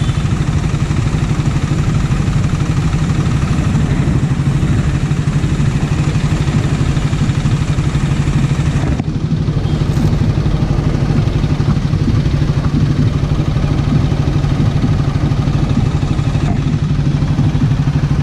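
Triumph Scrambler 400's single-cylinder engine idling steadily in stop-and-go traffic.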